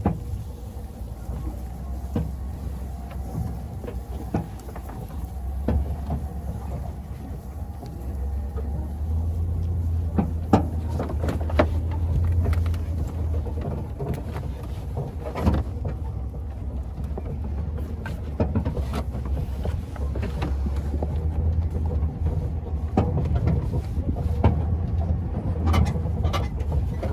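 Pickup truck running and moving, a steady low engine rumble with scattered knocks and rattles.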